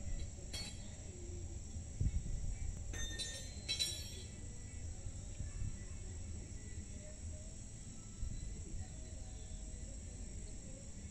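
Insects trilling in a steady high drone, over a low rumble, with a couple of brief sharp sounds about three to four seconds in. No siren is sounding yet.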